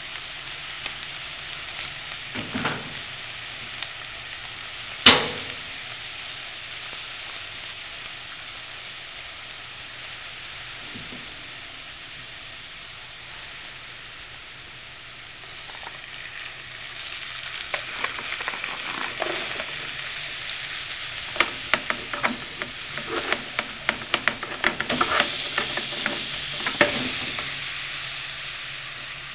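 Olive oil, garlic and spices sizzling steadily in a hot nonstick frying pan. A sharp knock comes about five seconds in, and a run of clicks and scrapes against the pan fills the second half.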